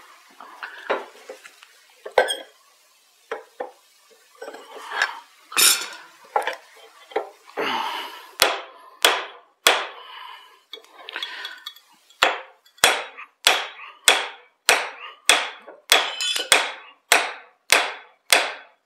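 Hammer blows driving a drift through the eye of a forged axe head, metal on metal with a short ring after each strike. Scattered knocks and clinks at first, then a steady run of about two strikes a second from about halfway.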